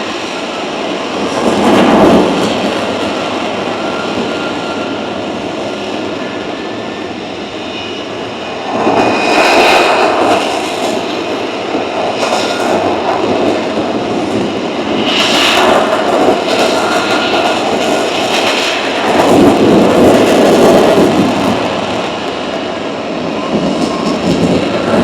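Aircraft engines running loudly overhead: a continuous rush that swells into several loud passes, around two, ten, sixteen and twenty seconds in, with a faint whine above it.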